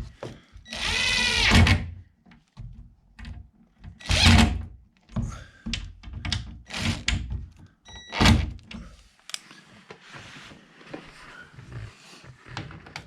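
Work knocks and clunks on a hanging door's hinge while a power drill runs briefly under load about a second in, its pitch wavering, to drive a hinge screw. Sharper thunks come at about four and eight seconds.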